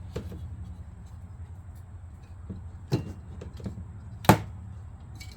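Scattered metal clacks and knocks as a bicycle wheel is handled and fitted into a truing stand, the loudest about four seconds in, over a steady low hum.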